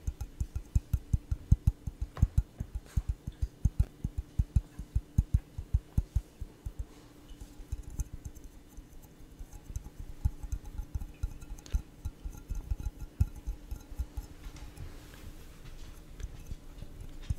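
Fingertips tapping on a stemless glass held right at the microphone: a quick even run of about four taps a second, then lighter, more scattered taps from about seven seconds in.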